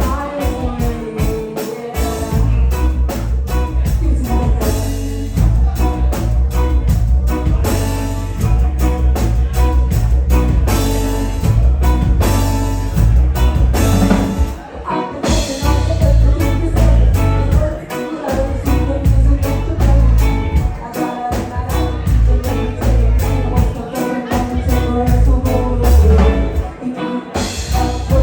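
Live band playing a song with drums, bass guitar, electric guitar, keyboards and saxophone, with some singing.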